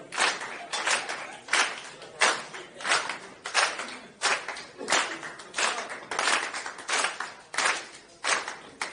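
Hand clapping in a steady rhythm, about one and a half claps a second with an occasional extra clap between beats.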